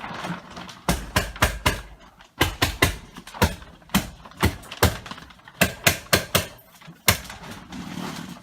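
Staple gun firing staples through polyethylene vapour barrier into wall framing: about twenty sharp snaps in quick irregular runs, a few a second.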